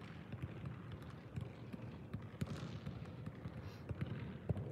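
Two soccer balls being juggled in low touches: a quick, irregular series of soft, faint thumps of ball on foot and knee.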